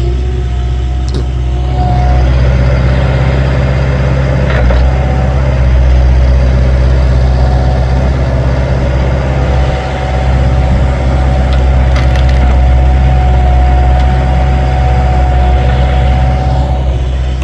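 Skid steer loaders' diesel engines running steadily, with a thin whine held over the engine hum and a few sharp knocks along the way.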